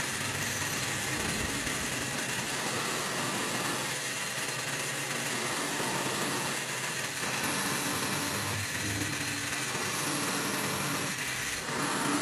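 Steady mechanical noise from a workshop tool running, an even sound without a clear pitch.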